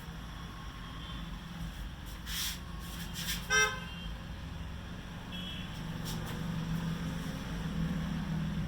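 A vehicle horn toots once, short, about three and a half seconds in, over a steady low hum.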